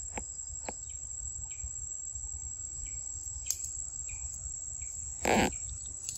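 A steady, high-pitched drone of insects, with a few faint chirps and clicks. One brief, louder noise about five seconds in.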